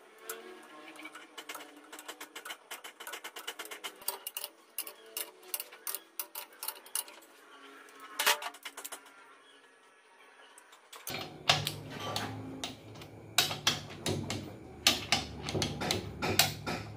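Rapid, irregular metallic clicking of a socket ratchet and tools clinking as the main bearing cap bolts are run down on a Mitsubishi 4D56 engine block. Background music with a low beat comes in about eleven seconds in.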